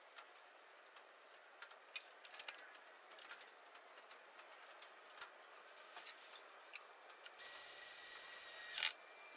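Light clicks and taps of a stepper motor and its screws being handled against a wooden frame, then a cordless electric screwdriver runs for about a second and a half near the end, driving in a screw that mounts the stepper motor.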